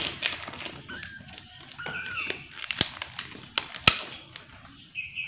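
Kittens mewing in short, high, wavering calls, mixed with a few sharp clicks and taps, the loudest nearly four seconds in, from the formula-milk things being handled.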